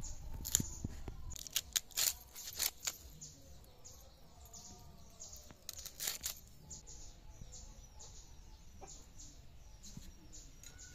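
Snakehead fish being scraped and cut against an iron blade: sharp scrapes and knocks in quick clusters, loudest in the first three seconds and again about six seconds in. A chicken clucks faintly in between.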